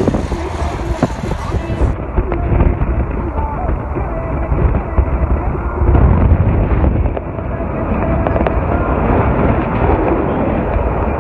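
Wind buffeting a phone microphone held out of a moving car, with road and traffic noise and indistinct voices; the rumble is heaviest about six seconds in.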